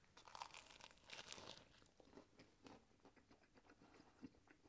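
Faint crunching of a bite into the crusty, overbaked shortcrust pastry of a lamb and mint Cornish pasty, lasting about a second and a half, then quieter chewing.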